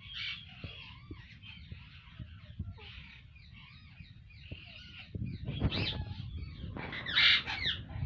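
Pair of Alexandrine parakeets chattering softly during courtship feeding, the male passing food to the female beak to beak. Two louder squawking calls come about five and a half and seven seconds in.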